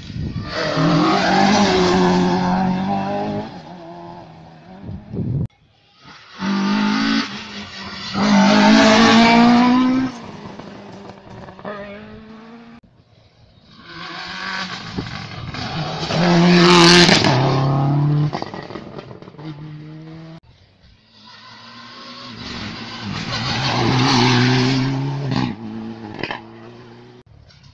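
Rally cars racing past one after another, four passes, each engine revving hard with gear changes as it swells in and fades away. A sharp crack comes at the loudest point of the third pass.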